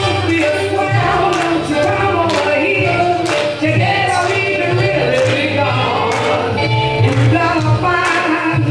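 Swing music with singing over a steady bass and beat, played for dancing.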